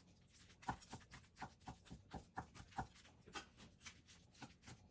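Chef's knife chopping grilled chicken on an end-grain wooden cutting board: quiet, quick knocks of the blade against the wood, about four a second.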